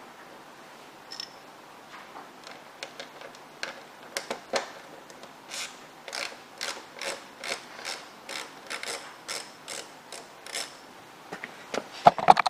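Socket ratchet clicking as a fairing bolt is undone, a run of short clicks about two or three a second. A few louder knocks come near the end.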